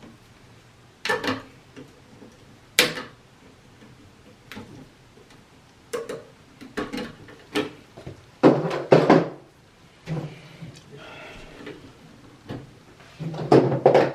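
Wire cutters snipping and stripping electrical cable: a series of sharp clicks and snips. Two longer scraping bursts come a little past the middle and again near the end, as the insulation is cut away.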